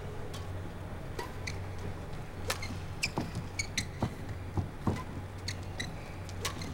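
Badminton rally: shuttlecock struck by rackets several times, mixed with short squeaks of court shoes, clustered in the middle, over a steady low hall hum.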